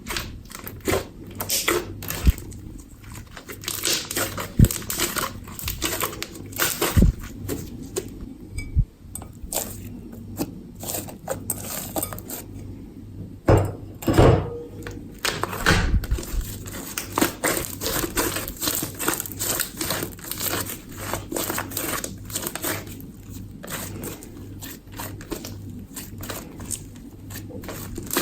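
Slime being squished and worked by hand, making dense, irregular sticky clicks and crackles with a few louder knocks.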